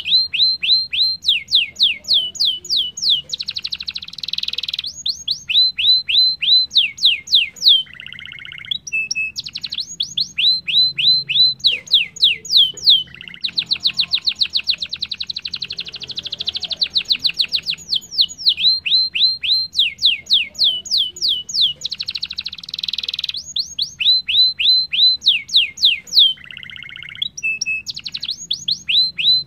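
Domestic canary singing a long, fast song: series of quick down-slurred whistled notes, stretches of rapid high trilling, and short lower buzzy phrases, with the phrases coming round again in the same order.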